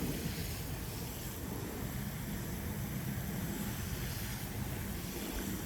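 Garden hose spraying water onto dry soil, a steady rushing hiss, with wind rumbling on the microphone.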